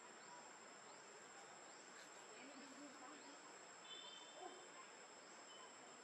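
Near silence: faint outdoor background with a steady high-pitched insect drone and faint short chirps repeating about once a second.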